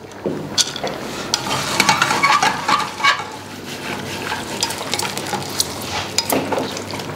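Slotted wooden spatula stirring and scraping nuts and seeds (cashews, almonds, poppy seeds, chironji) in a stainless steel frying pan, with the ghee frying underneath. Frequent irregular clicks of wood and nuts against the metal.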